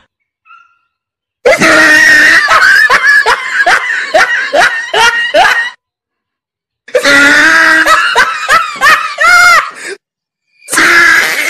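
Loud, high-pitched laughter in rapid repeated bursts, in two stretches of about four and three seconds, with a third starting near the end.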